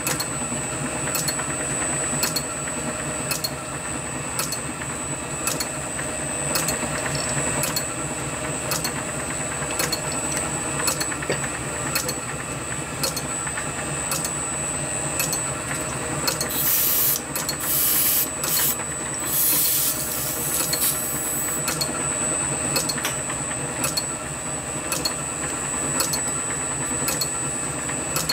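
Small metal-turning lathe running steadily: a constant machine hum with a light regular tick about twice a second. A few short bursts of hiss come about two-thirds of the way through.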